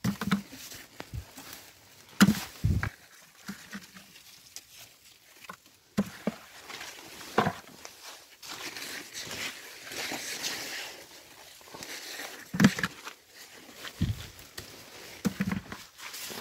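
Cucumber leaves and vines rustling as gherkin cucumbers are picked by gloved hand, with irregular dull knocks as the cucumbers drop into a plastic bucket.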